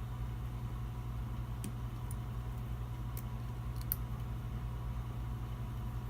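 A steady low machine hum with a few light clicks and taps, small parts and tools being handled, most of them between about one and a half and four seconds in.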